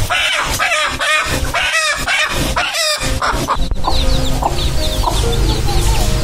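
A native country chicken squawking loudly in a rapid run of calls, about two a second, as it is held upside down by its legs; the squawking stops about three seconds in. After that, background music plays with faint, short, high cheeps.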